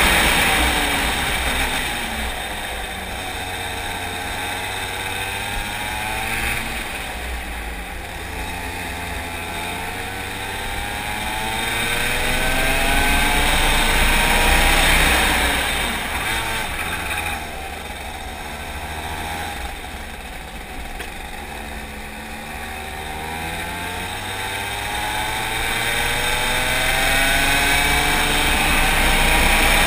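Go-kart engine heard onboard while racing, its revs climbing in long rising sweeps on the straights and dropping off into corners, so the sound swells and falls several times.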